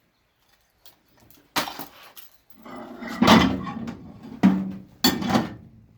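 Hard clattering and knocking of the charred tablet being handled in the microwave, in several separate bursts; the loudest come a little past the middle and near the end.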